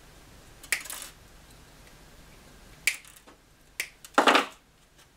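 Hands handling small decorations and greenery: a few sharp clicks spread through, then a short rustle near the end.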